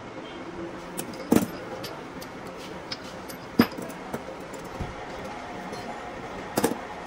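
Metal tools clinking and knocking: three sharp, loud knocks, about a second in, in the middle and near the end, with lighter ticks between, over a steady background hum.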